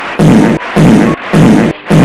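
Very loud, distorted music: a blaring burst repeats in an even rhythm, three times in two seconds, each lasting under half a second.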